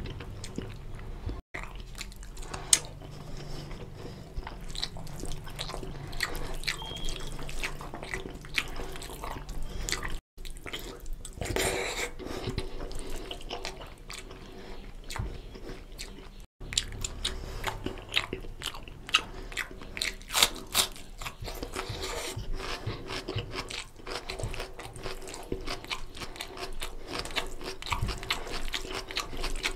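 Close-miked wet eating sounds: fingers mixing rice into oily mutton lung curry on a steel plate, and chewing, as a dense run of small irregular clicks and squelches. Three brief dropouts cut it.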